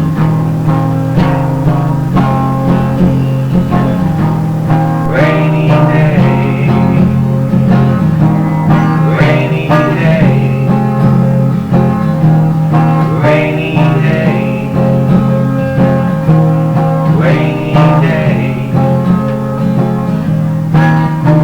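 Band music: guitars over a steady bass line, with a gliding, wavering melodic phrase coming in about every four seconds.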